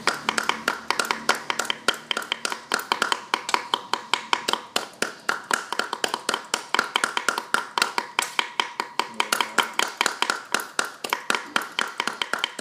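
Knives chopping on wooden cutting boards: a kitchen knife mincing red chilies and a cleaver cutting raw pork. It is a steady, fast tapping of about five strokes a second.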